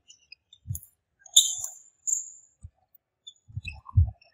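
Badminton rally on a wooden sports-hall floor: shoes squeaking, feet thudding and a sharp racket strike on the shuttlecock. Near the end comes the loudest thud, as a player drops to the floor in a lunge.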